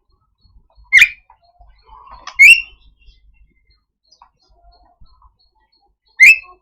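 Javan myna giving three short, harsh 'cukrek' calls, about a second in, near the middle and near the end, with faint softer notes between them.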